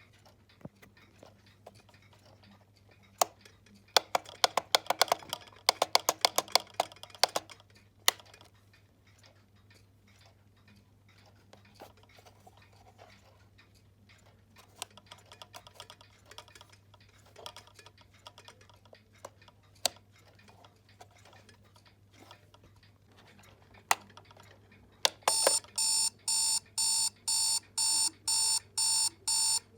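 Daniel digital alarm clock: sharp plastic clicks from its buttons and handling, then about 25 seconds in its alarm goes off, a high electronic beep repeating about twice a second.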